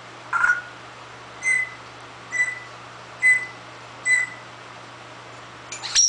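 Pet parrot giving a run of five short, high beep-like whistles about a second apart, followed by a harsher burst near the end.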